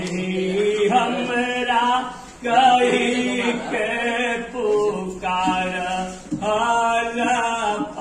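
A man singing a bidaai song, the lament for a bride leaving her parents' home, in long, drawn-out held notes that slide between pitches. He breaks for breath twice, and a steady low drone sounds beneath.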